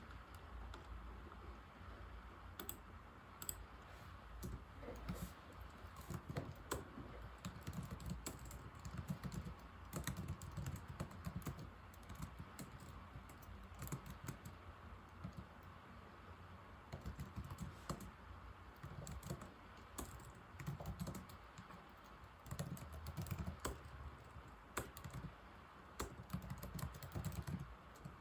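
Typing on an old laptop keyboard: quick runs of soft key clicks with short pauses between them, thinning out for a few seconds around the middle.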